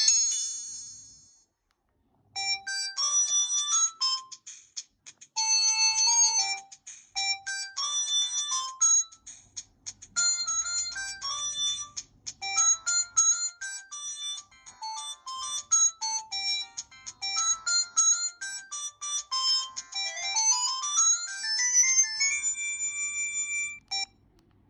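Samsung SGH-C270 mobile phone playing a built-in polyphonic ringtone: a melody of quick electronic notes that runs for about twenty seconds, ending in a fast rising run of notes and a held chord that stops abruptly. In the first second or so the previous tone fades out, followed by a short silence before the melody starts.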